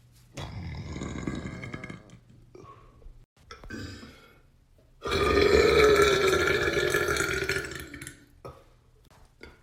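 A man burping several times: a burp of about a second and a half starting about half a second in, a short one around the middle, then the loudest, a long burp of about three seconds, with brief short ones near the end.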